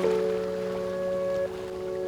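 Soft instrumental music of long held notes, with a new note entering at the start and one dropping out near the end. Under it runs a faint wash of ocean waves.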